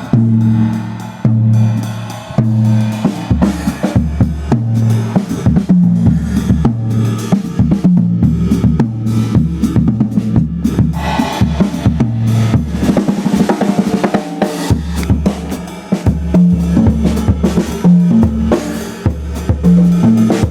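Acoustic drum kit played in a busy groove, with kick, snare and cymbal hits coming thick and fast, over a low bass line of held notes that change pitch.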